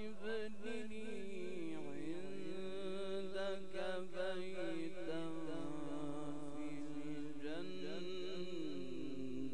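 A male Quran reciter (qari) chants in the melodic mujawwad style, drawing out long ornamented phrases with a wavering pitch. He holds one note for several seconds in the middle, then his voice climbs near the end.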